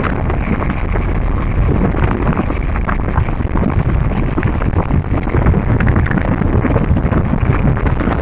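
Steady rush of wind buffeting the microphone over the road noise of a moving car.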